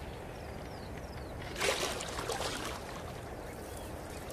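A small boat moving through water: quiet lapping with a splash about a second and a half in, and a few faint high bird chirps in the first second.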